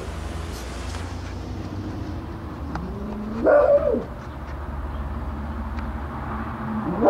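A dog barking in howling yelps: each call is a low whine that climbs sharply into a yelp and falls away. One comes about three and a half seconds in, and another starts near the end.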